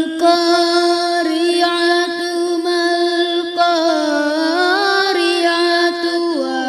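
A boy reciting the Quran in the melodic tilawah style, holding one long note and then ornamenting it with rising and falling turns about four seconds in, stepping down lower near the end.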